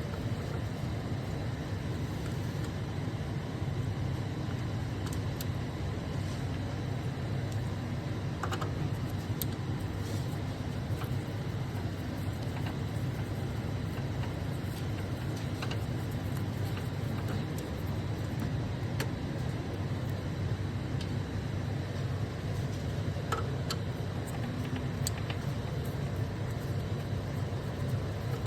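A steady low hum, with scattered faint clicks and taps from printer parts being handled and worked on.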